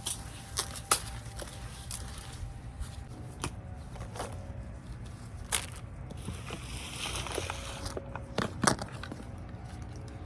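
Outdoor handling noise while bags of compost and potting soil are emptied into a raised garden bed: scattered knocks and footsteps, with plastic bags crinkling and rustling about six to eight seconds in.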